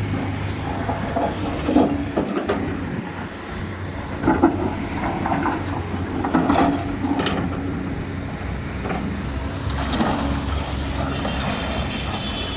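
Excavator engine running steadily, with a series of sharp knocks and clatters from the machine at work, loudest about four and a half seconds in.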